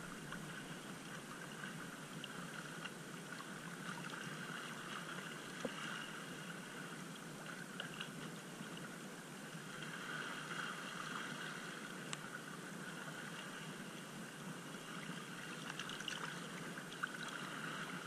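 Shallow sea water lapping and sloshing close by, a steady wash with a few faint clicks.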